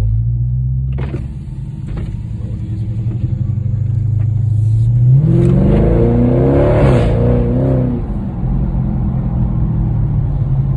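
Dodge Charger Scat Pack's 392 HEMI V8 (6.4-litre) running at a steady low drone, then pulling hard under acceleration about five seconds in. The engine's pitch climbs for about two seconds, then drops back as it settles to cruise.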